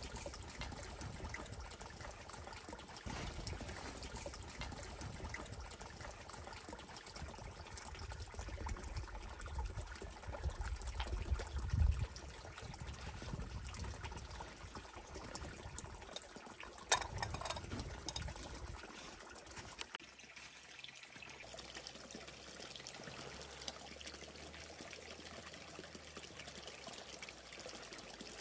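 Water trickling and splashing steadily, over a low rumble that stops about two-thirds of the way through, with one sharp click shortly before.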